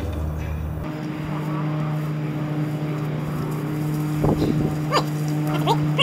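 A steady engine hum from an unseen machine, with a few brief sharp sounds about four and five seconds in.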